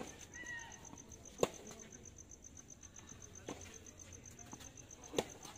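Tennis ball struck by racquets in a rally: three sharp pops, the loudest about a second and a half in, a fainter one midway, and another near the end. Behind them runs a steady, rapidly pulsing high chirp of insects.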